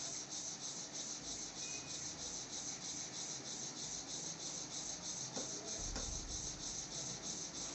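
Faint steady hiss of background room noise with a fast, even flutter in the high end; no distinct event.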